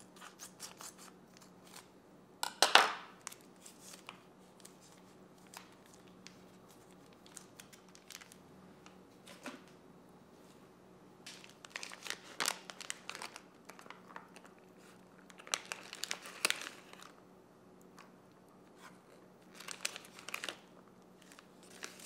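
Plastic hot pot seasoning packet torn open with one short, loud rip about three seconds in, then crinkled in several bouts as its thick chili base is squeezed out.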